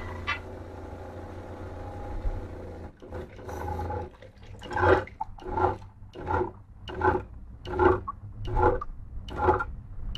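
Tap water pouring from a faucet into a tank, a steady splashing rush that fades out about three seconds in. From about four and a half seconds, a rhythmic run of loud voice-like pulses repeats roughly every three-quarters of a second.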